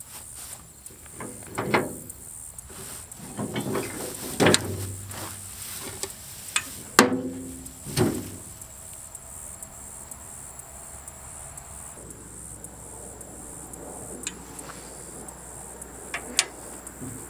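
A Hi-Lift-style farm jack being worked to pull a rust-seized blade pan off a brush hog's gearbox shaft: irregular metallic clacks and clanks of the jack's mechanism and chain under strain, the loudest about seven seconds in and a few more near the end.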